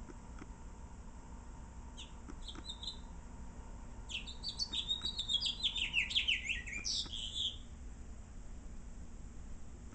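House finch singing: a few short chirps about two seconds in, then a rapid, warbling song of fast falling notes lasting about three and a half seconds, starting about four seconds in.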